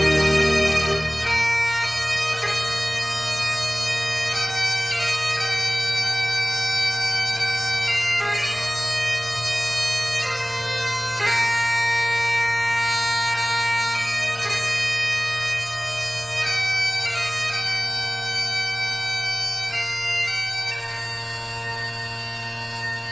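Bagpipes playing a slow melody of held notes over a steady drone, coming in about a second in as other music ends.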